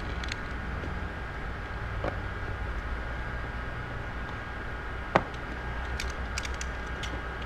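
Light handling sounds of a plastic masonry flashing panel over a steady low room hum: one sharp click about five seconds in, then a few faint ticks.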